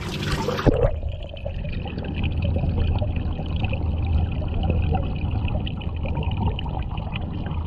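Water splashing as the camera breaks the surface of a turtle and goldfish tank. Then comes muffled underwater sound: a steady low rumble with many small clicks and bubbling.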